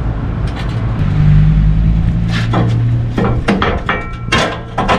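Metal knocks and clanks as a bolt is worked out of a truck trailer's underframe: about half a dozen sharp strikes from about two seconds in, some ringing briefly. A low steady hum runs underneath.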